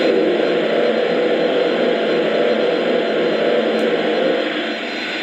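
Steady steam hiss of the blowdown effect, played by the sound system of a Lionel Vision Line Union Pacific Big Boy O scale model steam locomotive. It steps up in loudness at the start and eases slightly near the end.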